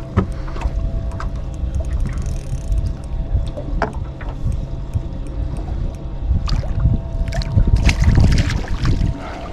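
A hooked bream splashing at the water's surface beside the boat as it is drawn over and scooped into a landing net, with the loudest splashing about eight seconds in. A steady low rumble and faint hum run underneath.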